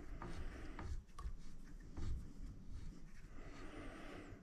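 Faint handling sounds from turning the latitude adjustment on an iOptron GEM28 equatorial mount head: a few light clicks, then a soft rubbing near the end.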